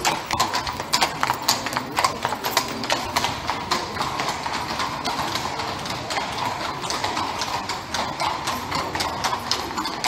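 Horse-drawn carriage on a paved street: shod hooves clip-clopping at a walk, a steady run of sharp strikes on stone over the low rumble of the carriage.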